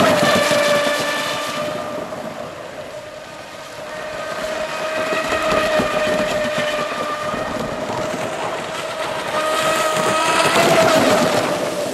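Electric RC hydroplane's Neu 2215 brushless motor and propeller running at speed: a steady high whine with the hiss of spray. It is loud at the start, fades as the boat runs off, and swells again about ten seconds in as it passes close.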